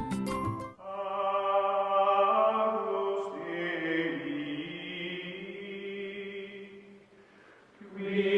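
Background music of long, held choral chant-like chords. A brief rhythmic passage ends about a second in, the held chords fade away near the end, and a new chord swells in just before the end.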